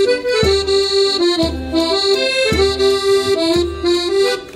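Button accordion playing an instrumental Gstanzl tune: a melody over low bass notes that change about once a second.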